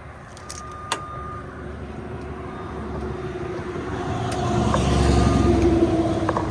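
A motor vehicle's engine and tyres growing steadily louder, loudest about five seconds in, then easing off.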